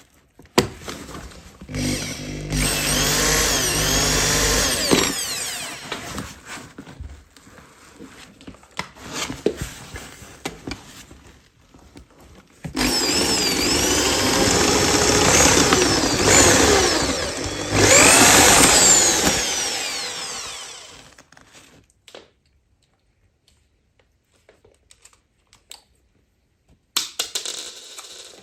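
Electric drill with a metal bit drilling out the rivets that hold a suitcase wheel hub, in two runs: a short one of about three seconds, then a longer one of about eight seconds. The motor's pitch sags and recovers as the bit bites into the rivet. Light handling knocks come between the runs.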